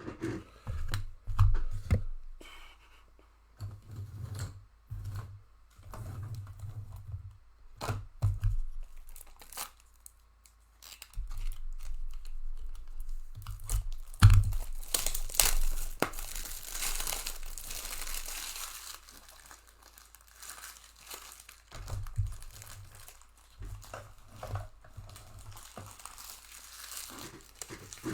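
Plastic wrapping crinkling and tearing for several seconds in the middle, after a run of light knocks from things being handled on a table.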